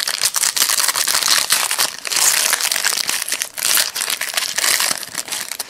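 Foil trading-card pack wrapper crinkling and crackling as it is torn open by hand, louder about two seconds in and again around four seconds.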